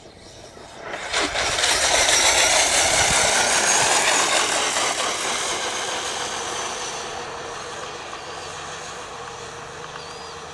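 Brushless electric RC truck hydroplaning across water: a high motor whine and the hiss of spray swell up about a second in, then slowly fade as it runs away.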